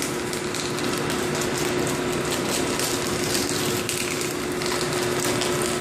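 Corn-puff screw extruder running: a steady machine hum with one constant tone, under a dense fine crackling as the heated corn meal is forced out through the die.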